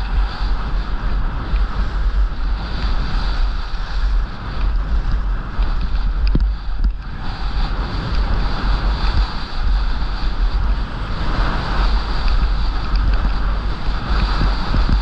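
Skis sliding and carving on groomed snow with wind buffeting the microphone: a continuous heavy rush that swells and eases with the turns, dipping briefly near the middle.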